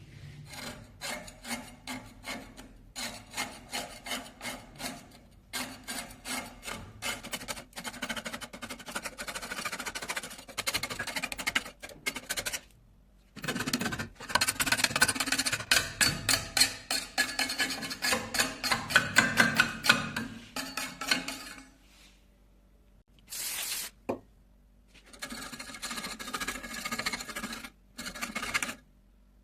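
Hand tool scrubbing back and forth over the rusty steel of a cleaver blade, taking off rust. Steady rubbing strokes come about two a second, in several runs broken by short pauses.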